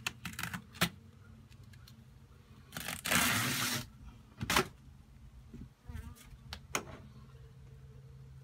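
Honeybee swarm humming steadily inside a closed, taped swarm box, with a few sharp clicks and knocks from handling the box and a loud rasp lasting about a second roughly three seconds in.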